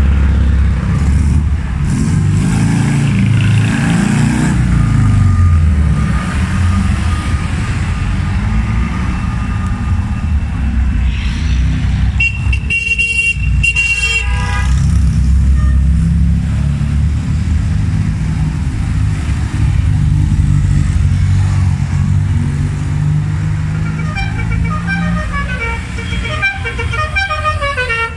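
A procession of vintage cars, Fiat 500s among them, driving slowly past one after another with their engines running. A car horn sounds for about two seconds midway, and a run of short high toots comes near the end.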